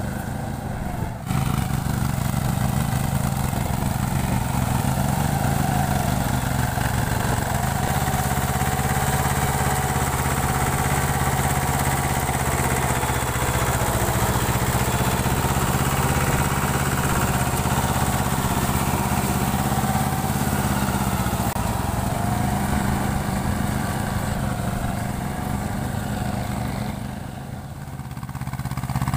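Mahindra Jivo 245 DI compact tractor's two-cylinder diesel engine running steadily under working load in wet paddy mud, dipping briefly quieter near the end.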